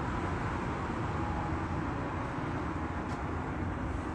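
Steady rumble and hiss of city traffic on a snow-covered street.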